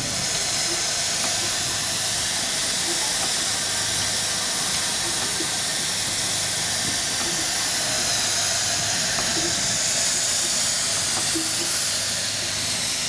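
Steam escaping from a steam road roller with a loud, steady hiss, over a faint low hum.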